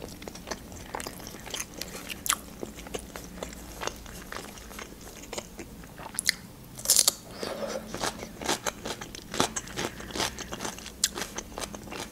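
Close-up chewing of crisp fried khinkali dough, with crunching and small wet mouth clicks throughout and a louder crunch about seven seconds in.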